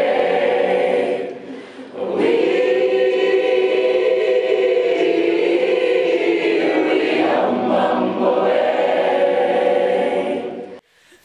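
A group of voices singing together in harmony, holding long chords. The singing dips briefly about a second and a half in and stops abruptly just before the end.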